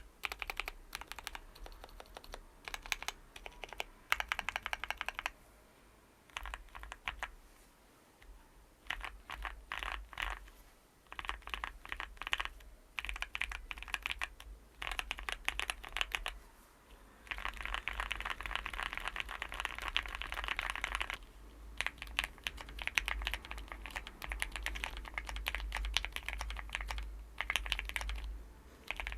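Zoom65 mechanical keyboard with Gateron Oil King linear switches and Novelkeys keycaps being pressed: short runs of key clicks separated by brief pauses, becoming a continuous stretch of fast typing about halfway through.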